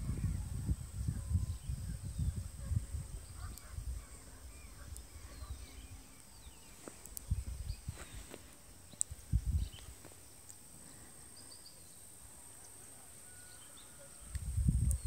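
Wind buffeting the microphone in gusts, strongest in the first few seconds and again near the end, with faint bird chirps and calls in the background and a thin, steady high-pitched tone throughout.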